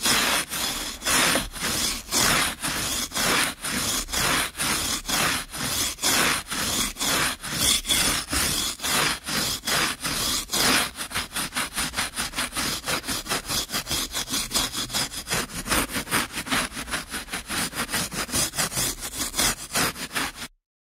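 Rhythmic back-and-forth scraping strokes on a rough surface, about two a second, quickening to about four a second around halfway, then stopping suddenly near the end.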